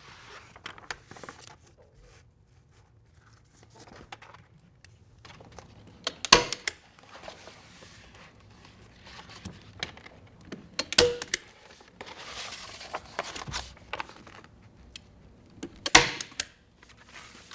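Hand staple gun snapping staples through a sheet of Moistop paper flashing into the wall: three loud snaps about five seconds apart, the first about six seconds in, with the stiff paper crinkling as it is handled between them.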